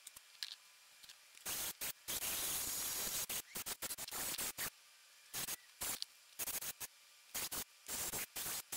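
A steady, bright hiss that cuts out abruptly again and again, leaving near silence in between.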